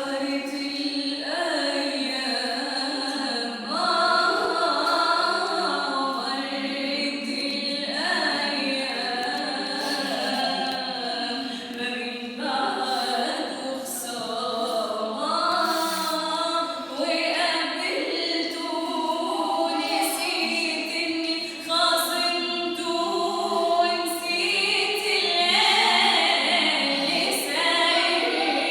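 A woman singing a classical Arabic song in the tarab style, with long held notes that waver and bend in ornament.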